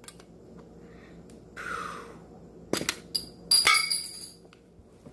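A small metal Pokémon mini tin being opened. There is a short scrape, then a sharp click, then a louder metallic clink with a brief ring about three and a half seconds in.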